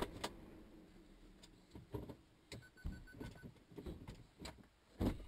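Faint scattered clicks and knocks, with a short run of about five quick high beeps about two and a half seconds in.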